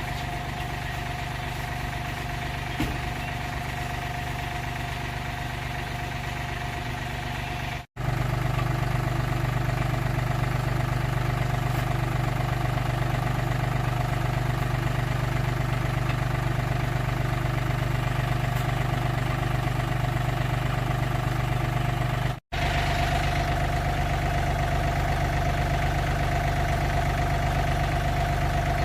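An engine running steadily at idle, with an even, unchanging hum. It is heard in three joined takes, cut off abruptly about 8 and 22 seconds in and getting louder after the first cut.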